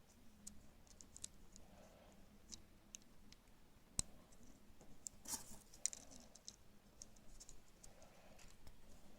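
Faint, scattered clicks and crinkles from a Kinder Surprise egg and its parts being handled and opened by hand, with one sharper click about four seconds in.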